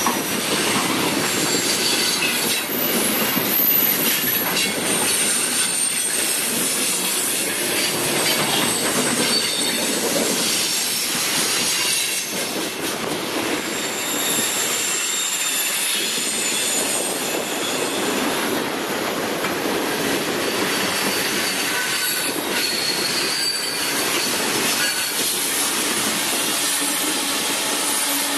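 CSX freight cars, coal hoppers and gondolas, rolling past close by: a steady clatter of steel wheels over the rails, with thin high-pitched wheel squeal coming and going.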